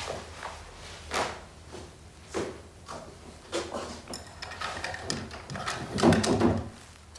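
Slow footsteps on a tiled floor, a little over a second apart. Then a click and the louder rattle and scrape of a cabinet being opened near the end.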